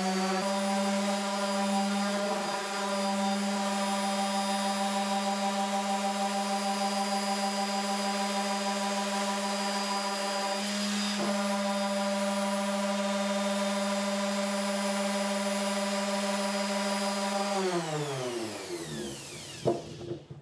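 Makita random orbital sander running steadily with a 240-grit disc on plywood, a constant motor hum with the rub of paper on wood. Near the end it is switched off and winds down, its pitch falling, with a single knock just as it stops.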